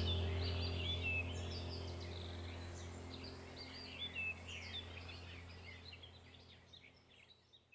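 Small birds chirping and twittering over a low steady hum, the whole fading out to silence about six seconds in.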